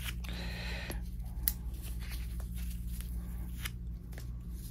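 Handling noise of a watch band being wrapped around a wrist: a short rubbing sound near the start, then a few light clicks. A steady low hum runs underneath.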